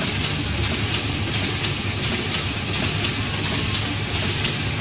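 A small Zhongye offset printing press running steadily, with an even mechanical clatter from its rollers and sheet feed as it prints sheets.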